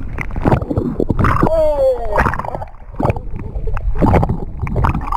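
Sea water gurgling and sloshing around a camera held at the waterline as it dips under and comes back out, with irregular splashes. About a second and a half in, a voice calls out once in a drawn-out cry that falls in pitch.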